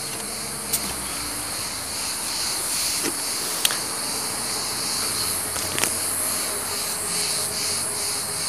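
A steady, high-pitched insect chorus shrilling continuously, pulsing in quick even beats through the second half. A few sharp clicks, the loudest about three and a half seconds in, cut across it.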